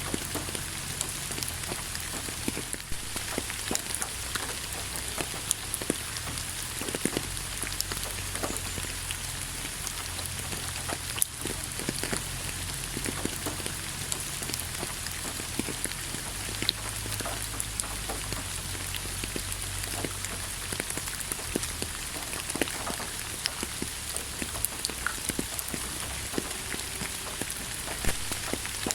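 Steady rain falling, with a continuous hiss and many close, scattered drop ticks hitting a surface, over a low steady rumble.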